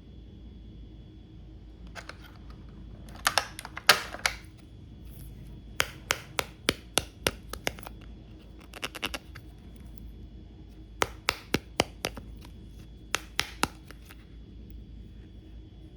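Pieces of a toy doctor set being handled: groups of sharp clicks and taps, some in quick runs of about three a second, over a faint steady hum.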